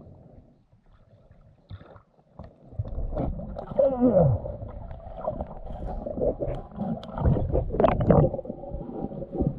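Muffled underwater gurgling and bubbling from a snorkeler in a lake, getting louder about three seconds in, with a few low moaning sounds that slide down in pitch.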